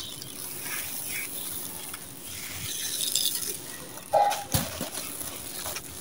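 Dry sand-cement pot being crumbled in the hands, with white gravel grinding and trickling through the fingers. A thump comes about four and a half seconds in, just after a short animal call in the background.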